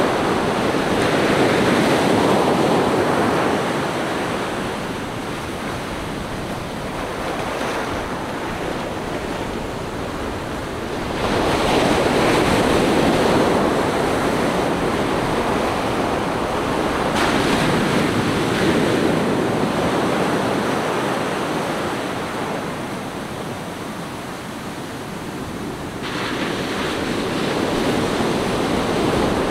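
Ocean surf breaking and washing up a sandy beach, the rush of water swelling and easing as each wave comes in, several seconds apart.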